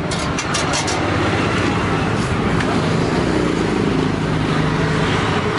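Road traffic: a motor vehicle's engine running close by, a steady rumble, with a few sharp clicks in the first second.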